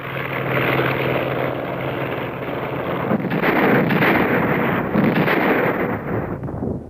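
Battle sound track: a steady engine drone, joined about three seconds in by a dense rush of artillery and gunfire that cuts off near the end.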